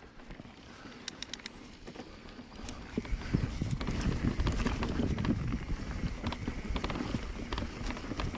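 Mountain bike riding a rough trail: scattered clicks and knocks at first, then from about three seconds in a louder low rumble with rapid rattling and knocking from the tyres and frame over the bumpy ground.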